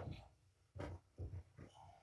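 A few soft thumps and knocks, spaced out, starting about a second in.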